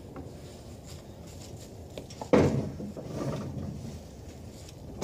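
A wooden loading-ramp plank knocks hard against a pickup truck about two seconds in, then rattles and scrapes for a second or so, with another knock at the very end.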